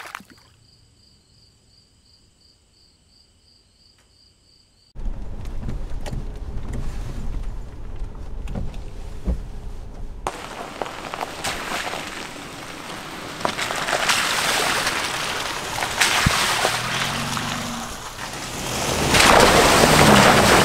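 A 2015 Toyota Tacoma pickup driving a wet gravel road, its engine and road noise first heard from inside the cab, then from outside with tyres crackling over wet gravel. Near the end comes a loud rush as a wheel ploughs through a puddle. It opens with a few seconds of faint, high, steady tones before the driving noise cuts in.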